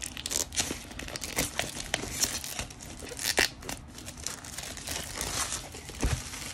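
Clear plastic shrink-wrap crinkling and tearing as it is peeled off a boxed card-game product, with a thump about six seconds in.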